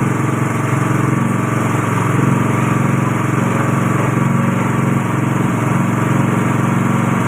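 A coconut-milk pressing machine running steadily under its motor, giving a constant, even engine-like hum with no change in speed.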